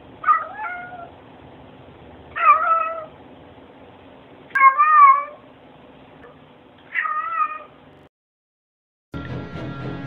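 A domestic cat meows four times, about two seconds apart, each meow less than a second long. After a short gap, music begins near the end.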